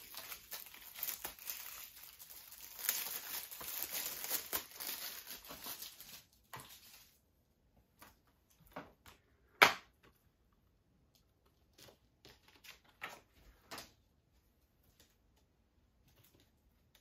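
Plastic shrink wrap being torn and crumpled off a Blu-ray case: a crackling rustle for about the first six seconds. Then a sharp click a little before ten seconds and a few lighter clicks as the plastic case is handled and opened.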